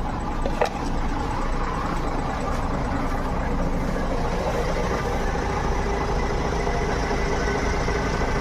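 A large tour bus engine running steadily at idle, with one short sharp click about half a second in.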